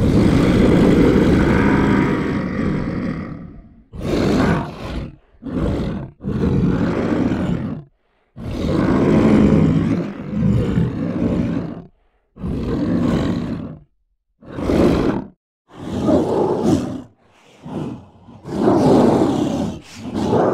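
Monster roars and growls made from a human voice, transformed in real time by the Dehumaniser voice-processing software. A long roar of about four seconds comes first, then a string of shorter roars and growls of a second or two each, with brief silences between them.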